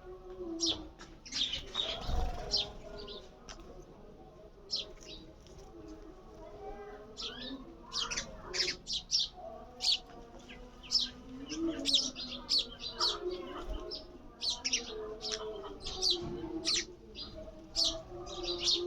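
Sparrows chirping: many short, sharp chirps in quick irregular succession, busiest from about eight seconds in.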